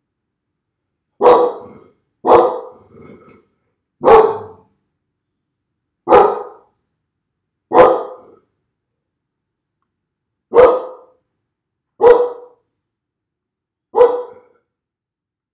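Springer spaniel barking: eight single barks, one every one to two and a half seconds, with silence between them.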